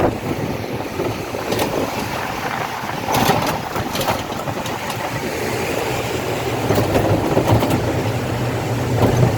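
An engine running steadily, its low hum growing stronger partway through, over a rushing noise of water and wind.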